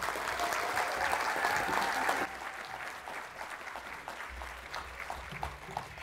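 Audience applauding, full for about two seconds, then thinning to scattered claps that die away.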